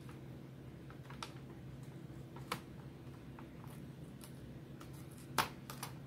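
Thin glued-on plastic insulating sheet being peeled off a laptop motherboard, giving a few scattered crackles and sharp clicks over a low steady hum; the loudest click comes about five seconds in.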